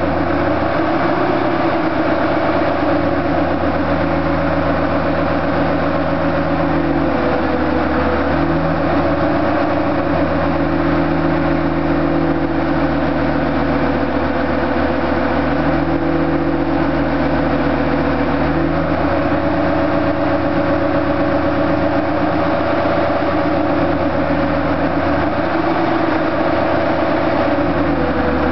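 Dodge Ram pickup's Cummins turbo-diesel engine idling steadily, with slight shifts in pitch every several seconds.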